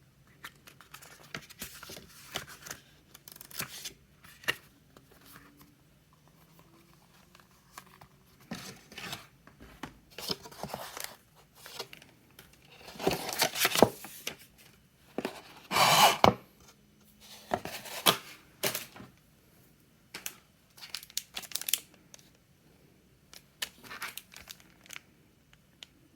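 Packaging being torn open and crinkled by hand in irregular bursts of tearing and rustling, with the loudest tears about halfway through.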